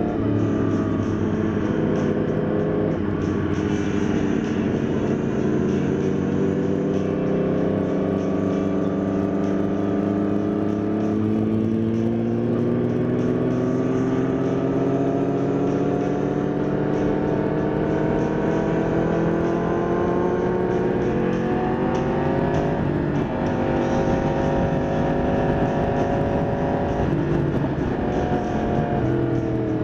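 Sport motorcycle engine running at road speed, its pitch climbing slowly and steadily as the bike accelerates, then dropping suddenly about two-thirds of the way through and again near the end as the throttle eases. Steady wind noise rushes over the microphone throughout.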